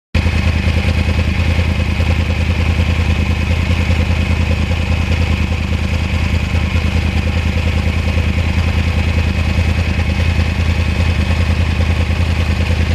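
2009 Yamaha R1's crossplane inline-four engine running at a steady, unchanging speed with a pulsing exhaust beat. It starts and cuts off suddenly.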